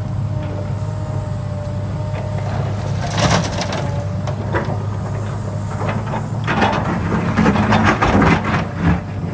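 Heavy diesel construction machine running steadily, with bursts of metallic clanking and scraping about three seconds in and again through the second half.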